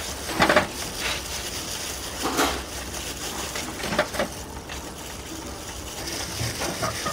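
Plastic-gloved hands working marinade into a raw whole chicken and duck: intermittent wet squishing and rubbing, with a few louder squelches, one as a hand scoops into the bowl of marinade about four seconds in.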